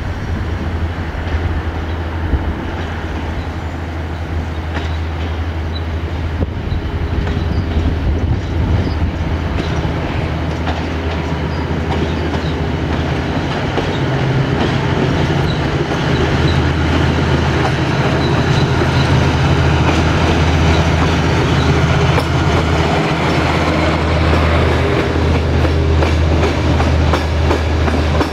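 CFR class 82 (LDH 125) diesel-hydraulic locomotive running under power as it hauls passenger coaches past, a steady low engine drone growing louder as it nears. In the last few seconds the coach wheels clatter over the rail joints and points.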